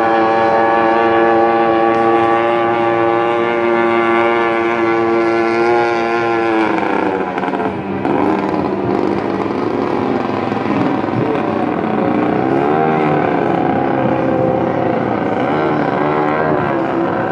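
Racing powerboat engines running hard: a steady high engine note for about the first seven seconds, then the pitch dips and sweeps up and down repeatedly as the boats change speed on the course.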